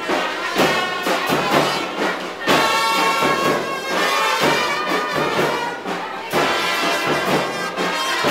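Brass band playing a tune with trumpets and trombones over a steady drum beat of about two strokes a second.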